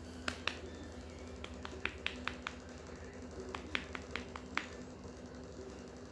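A series of sharp, short clicks or taps: two near the start, then two quick runs of about five, roughly five a second.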